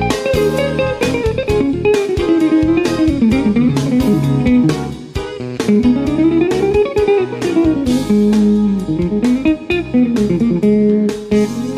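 Hollow-body archtop electric guitar played in a fast jazz improvisation: long runs of quickly picked single notes that climb and fall in pitch again and again.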